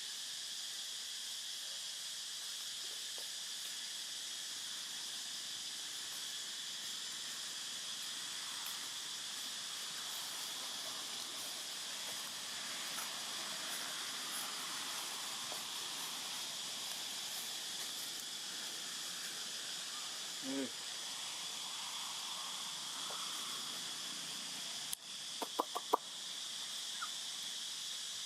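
Steady high outdoor insect drone, with one short low call about two-thirds of the way in and a quick run of four short, sharp animal calls near the end.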